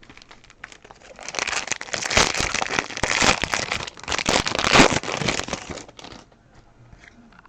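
Foil trading-card pack wrapper being crinkled and torn open: a dense crackling from about a second in until about six seconds.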